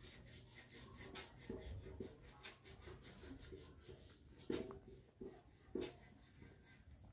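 Faint rubbing and scraping: a quick run of short, scratchy strokes, with a few louder ones about four and a half and six seconds in.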